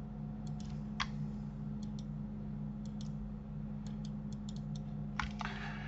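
Computer mouse and keyboard clicks: a dozen or so light, separate clicks at irregular intervals over a steady low hum, with a short rustling noise near the end.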